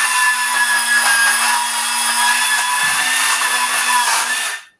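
Electric wire stripping machine running, a steady high-pitched motor whine with a low hum, as copper wire is fed through to slit its insulation; it cuts off near the end.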